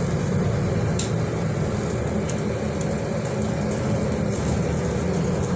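Service bus in motion, heard from inside the passenger saloon: a steady low drone of engine and road noise. A single sharp click sounds about a second in, and a few fainter ticks come near the end.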